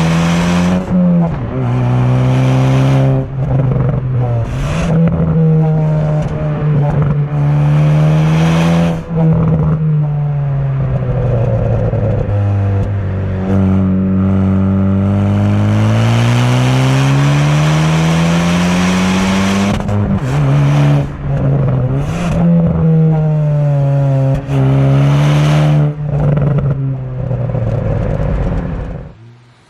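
Hyundai N hot hatch's four-cylinder engine pulling hard through several gears. The pitch climbs and drops back sharply at each upshift, eases off, then climbs again, with short cracks between the pulls. The sound falls away suddenly near the end.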